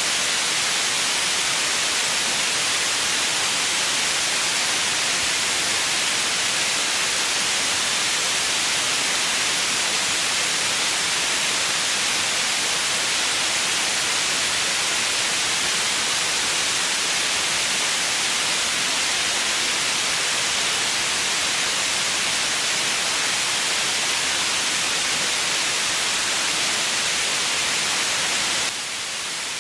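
Steady white noise: an even, unbroken hiss weighted toward the higher frequencies, with no pitch or rhythm. The level steps down slightly and suddenly near the end.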